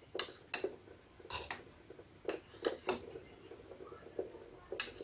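Metal spoon clinking and tapping against a ceramic bowl while scooping mashed potato: about eight sharp clicks at uneven intervals.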